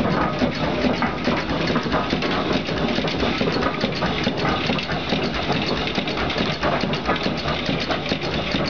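Steam donkey engine running steadily, its shaft and flywheel turning, with a fast, even beat over a hiss.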